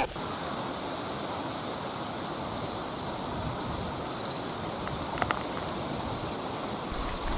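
Steady, even outdoor hiss of lakeshore ambience with no voice. There is a faint short high beep about four seconds in and a few light ticks about five seconds in.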